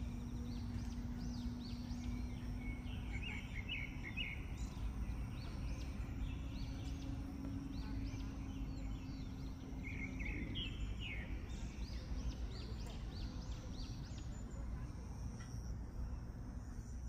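Birds calling outdoors: many short, high chirps in quick clusters, some groups rising in pitch, over a steady low rumble.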